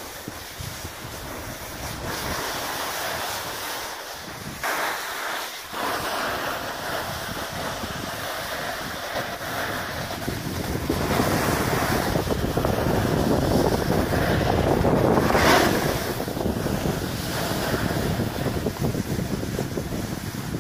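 Wind buffeting the microphone of a camera moving downhill, mixed with the hiss of sliding over snow, swelling louder around the middle and easing off near the end.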